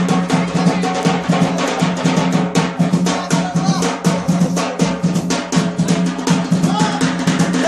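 Tabl drum beaten in a rapid, unbroken rhythm for dancing, with a steady low drone under the strokes.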